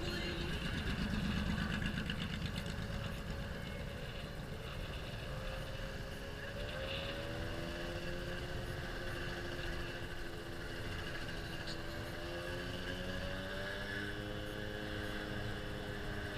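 A vehicle running, a steady low rumble with a droning tone that shifts slightly in pitch about six and a half seconds in.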